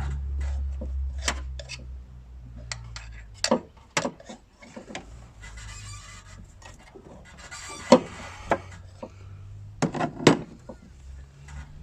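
Hand tools clinking and knocking on metal during engine-mount work: scattered sharp taps at irregular intervals, the loudest about eight and ten seconds in.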